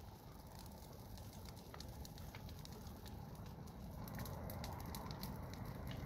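Dry scrub burning, with scattered sharp crackles and pops over a low wind rumble; the crackling grows denser and a little louder about two-thirds of the way through.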